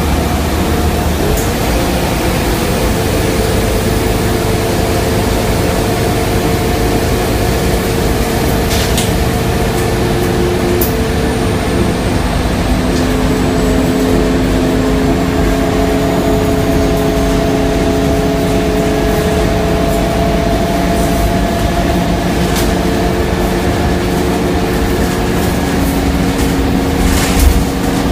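Scania KUB city bus under way, heard inside the passenger cabin: a steady engine and drivetrain drone with several whining tones that slowly shift in pitch. A few light rattles, and a sharp knock near the end is the loudest sound.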